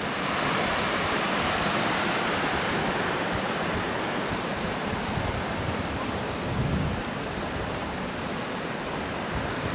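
A river flowing steadily: a continuous rushing hiss of moving water, with a brief low rumble about two-thirds of the way through.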